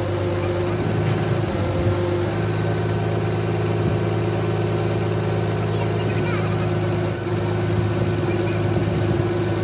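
Engine idling steadily.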